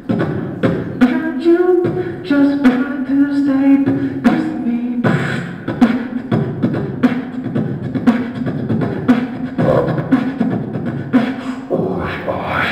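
Beatboxing into a hand-held microphone: a steady beat of about two sharp mouth-drum strokes a second, with a hummed, wavering tone over the beat for the first few seconds.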